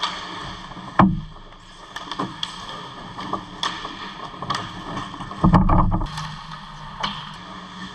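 Ice hockey play heard up close at the goal: skate blades scraping and hissing on the ice with scattered stick and puck clacks. A loud sharp crack about a second in, and a heavier, longer knock around five and a half seconds in, the loudest sound.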